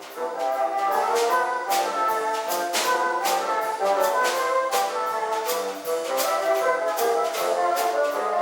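Wind-ensemble music: several wind instruments holding and moving through chords in parts, with sharp regular accents about two to three a second.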